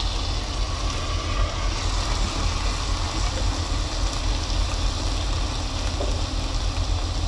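Steady low rumble with an even hiss over it inside a truck cab, as a pot of chicken and vegetables steams and sizzles, just uncovered, on a small stove.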